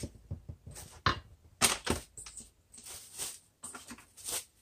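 Stiff cookie dough being mixed in a stainless steel bowl: a utensil scraping and clinking against the metal in irregular strokes.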